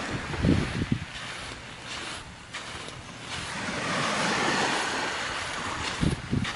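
Small waves washing onto a shingle beach, swelling to a peak about four seconds in and easing off, with wind buffeting the microphone in short low rumbles near the start and near the end.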